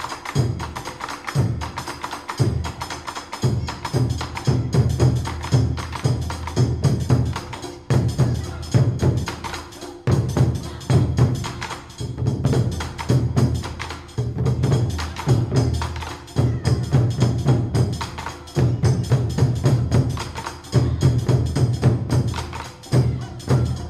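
Background music with a busy percussive beat of clicks and taps over a repeating bass line.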